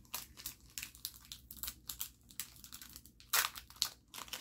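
Crinkling and tearing of a trading-card pack's foil wrapper as it is handled and ripped open: a run of short, irregular crackles, with the loudest a little over three seconds in.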